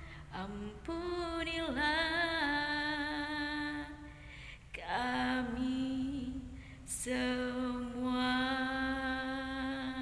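A woman singing unaccompanied, drawing out long wavering notes in three slow phrases, the last one held long and steady.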